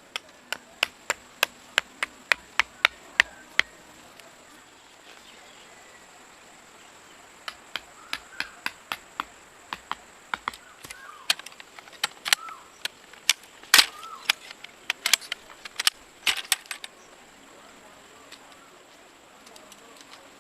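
A run of sharp, quick strikes, about three a second for a few seconds, then a pause. After it comes a longer, more irregular series of strikes, with one louder knock about two-thirds of the way through, over a faint steady hiss.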